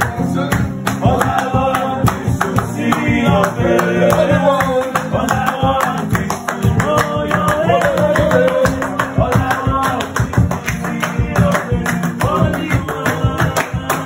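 An upbeat song with a singing voice over guitar and a quick steady beat.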